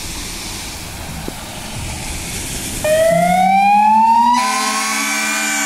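Fire engine siren switching on about three seconds in, a wail rising in pitch, over the truck's engine revving up as it pulls out; a second, steady tone joins about a second and a half later. Before the siren, a steady hiss of wet-road traffic.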